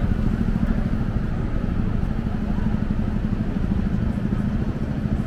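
City street ambience: a steady low rumble of road traffic engines, with voices in the background.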